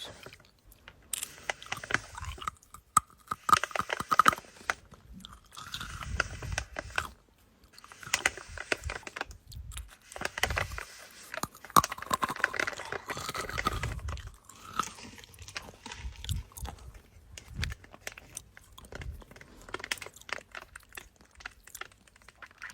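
Close-miked ASMR trigger sounds: crunchy, crackling clicks coming in irregular bursts, with a few soft low thumps.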